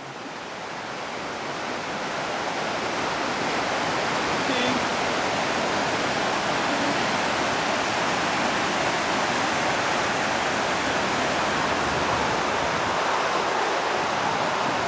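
Fast mountain river rushing over rocks in white-water rapids: a steady hiss of running water that swells up over the first couple of seconds.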